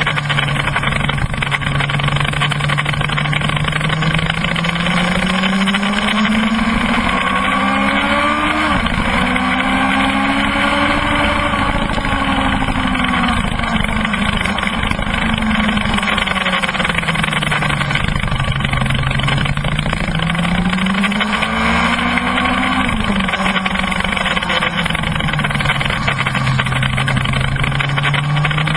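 Kawasaki ZX-12R's inline-four engine running hard at track speed, its note climbing and falling in long sweeps with sudden drops in pitch twice, about a third of the way in and again about three quarters in. Heavy wind rush on the bike-mounted microphone.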